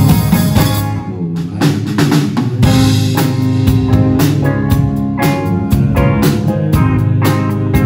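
Live rock band playing, with drum kit, electric bass, keyboard and guitar. The music thins out briefly about a second in, then the drums come back in with a steady beat.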